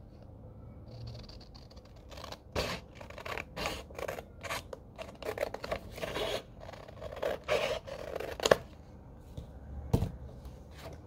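Small plastic-handled scissors cutting through a sheet of paper: a rapid run of snips lasting several seconds, then two sharper clicks near the end.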